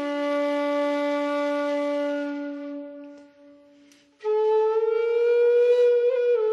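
Slow Celtic melody from a recorded album track, played as long held notes on a flute-like wind instrument. The first low note fades away about three seconds in, and a higher phrase starts just after four seconds.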